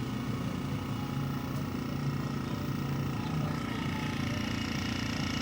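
Air compressor running with a steady hum. A fainter higher tone joins a few seconds in.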